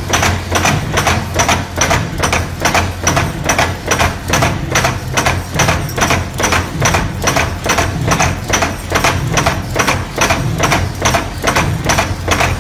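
Mechanical punch press stamping sheet metal repeatedly, about three strokes a second, each stroke a sharp clack over the steady hum of its motor and flywheel.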